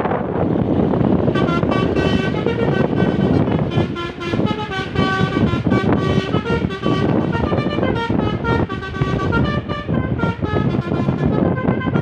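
Tour bus's Basuri multi-tone telolet horn playing a melody of shifting notes, starting about a second in and running until just before the end, over wind buffeting and road noise.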